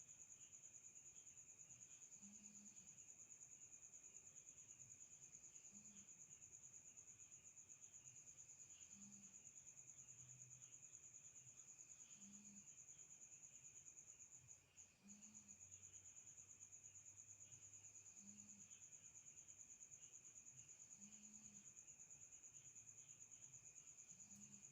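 Faint, steady high-pitched cricket trill that breaks off for a moment about fifteen seconds in.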